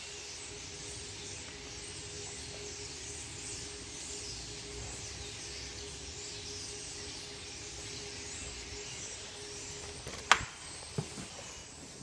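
A large flock of small birds chirping and twittering together, a dense mass of short high calls over a faint steady hum. About ten seconds in comes a sharp knock, the loudest sound, followed by a couple of softer bumps.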